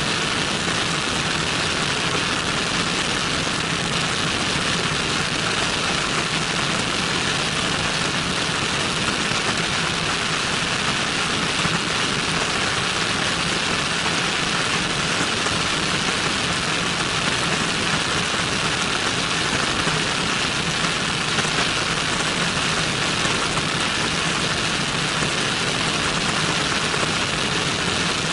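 Steady rush of airflow over an externally mounted camera on a Cessna 172N in flight, with the low, even drone of its four-cylinder Lycoming engine and propeller underneath.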